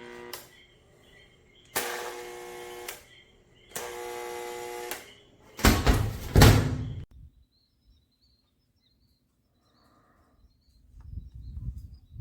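Jigsaw motor switched on in three short runs of about a second each with a steady whine, then a louder, rougher burst of about a second and a half around six seconds in, after which the sound stops.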